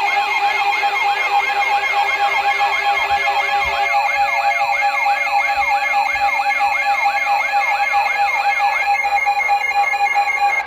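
Electronic siren wailing in quick sweeps, about two to three cycles a second, over several steady alarm tones. The sweeping stops near the end while the steady tones hold on, then everything cuts off.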